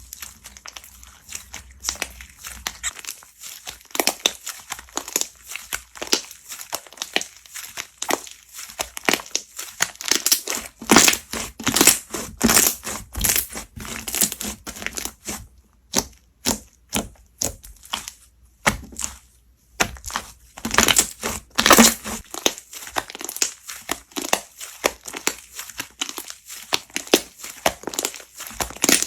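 Slime being squeezed and pressed by hand, giving dense, irregular runs of crackling clicks that grow louder and busier partway through, with short pauses between handfuls.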